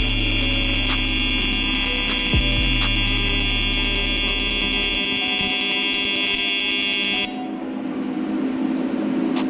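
AC TIG welding arc buzzing steadily, set to about 78 amps and a 200 Hz AC frequency, tacking a bracket without filler rod. The arc cuts off sharply about seven seconds in, leaving a lower hum.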